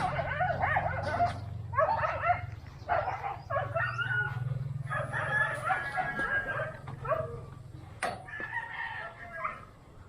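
Roosters crowing in several overlapping bouts of calls, over a low steady hum.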